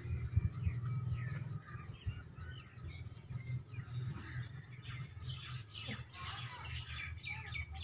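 Small birds chirping and twittering in many short, quick calls, thicker toward the end, over a steady low rumble.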